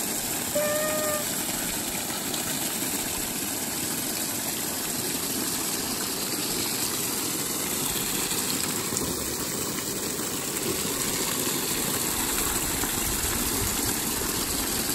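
Steady gush of water from the bottom tap of an IBC tote tank, pouring and splashing onto a plastic pond liner. A short pitched call sounds briefly less than a second in.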